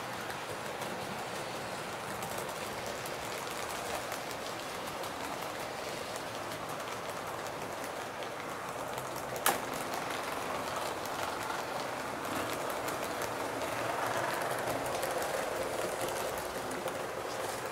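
Model train running on the layout track: a steady rattling hiss of wheels on rail that grows somewhat louder in the second half, with one sharp click a little past halfway.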